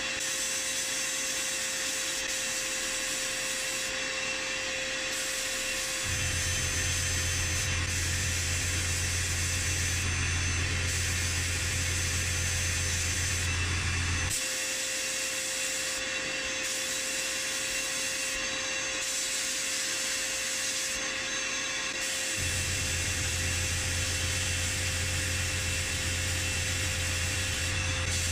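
Electrostatic powder-coating gun and booth running: a steady rush of air with a steady whine. A low hum comes on about six seconds in, stops around the middle, and comes back later.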